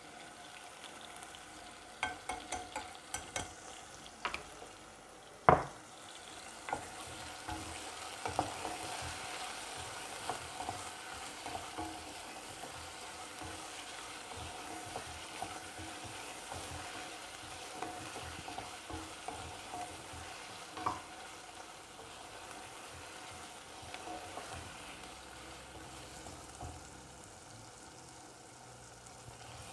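Chicken pieces sizzling in oil in a frying pan while a wooden spatula stirs them, with scattered taps. A quick run of clicks comes about two seconds in, and one sharp knock about five seconds in.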